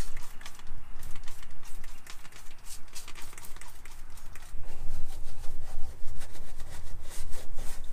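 A trigger spray bottle squirting in quick repeated pumps, then a hand brush scrubbing, the strokes growing louder and denser about halfway through.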